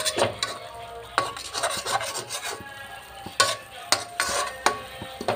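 A metal ladle scraping and knocking against the inside of a metal wok, about nine strokes, as pork steak is stirred in its sauce. Several strokes leave a short metallic ring from the pan.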